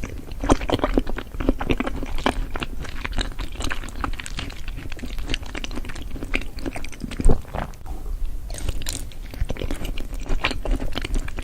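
A person eating crunchy food close to the microphone: dense, irregular crunches as they bite and chew, with one louder crunch about seven seconds in.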